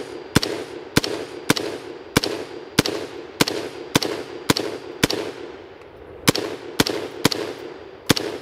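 Brownells BRN-Proto AR-15 replica rifle firing 5.56 mm M193 ball semi-automatically: about a dozen shots at a steady pace of a little under two a second, with a short pause a little past halfway. Each shot rings off in a trailing echo.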